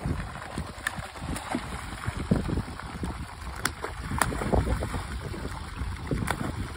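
Wind buffeting the microphone over water pouring from an outlet pipe into a pond, with a few short sharp clicks and splashes as live sturgeon are tossed into the water.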